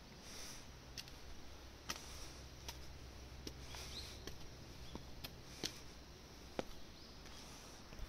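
Faint footsteps climbing stone steps and crossing concrete paving: sharp, light ticks roughly once a second at an uneven walking pace, over a low steady hum.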